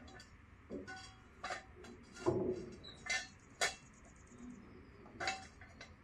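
Scattered light metallic clinks and knocks from metal parts and tools being handled at a car chassis, with about five louder knocks and a brief high ring near the middle.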